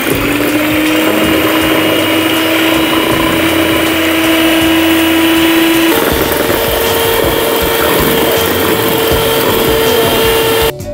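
Electric hand mixer whipping egg whites with sugar in a plastic bowl: a steady motor whine that climbs a little as it comes up to speed, steps up to a higher pitch about six seconds in, and cuts off just before the end. The whites are being beaten from liquid to foam.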